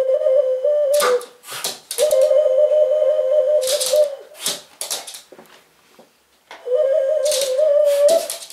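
Ocarina played in three phrases of quick warbling trills between two close notes. Short sharp yaps from a Shih Tzu puppy come between and over the phrases.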